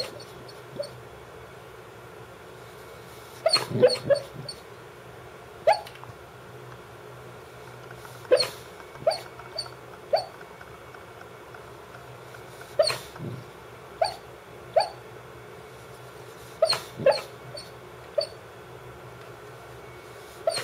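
Brittany spaniel barking in its sleep: about a dozen short barks, some single and some in quick runs of two or three, spaced irregularly a second or a few seconds apart.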